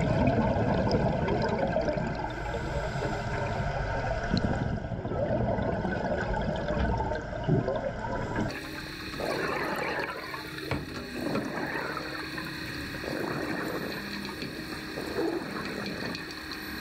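Water sloshing and gurgling, with small bubbling glides. The sound changes abruptly about halfway through.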